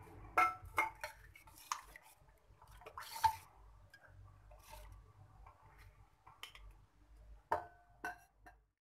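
Stainless steel spoon and dishes clinking and scraping while a thin buttermilk curry is stirred in a steel bowl. There are several sharp, ringing clinks in the first two seconds, another about three seconds in, and two more near the end.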